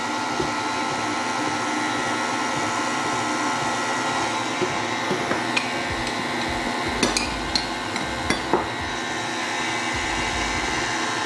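KitchenAid tilt-head stand mixer running steadily, its motor humming with a steady whine as the beater turns through pumpkin muffin batter. From about halfway through, a metal spoon clinks sharply against the bowls several times.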